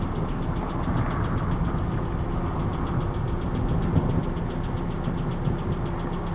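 A vehicle engine idling steadily, a constant low hum.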